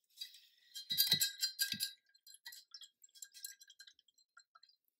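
Light clinking and rattling of painting supplies on a table, densest in the first two seconds with a few soft knocks, then thinning to scattered small clicks.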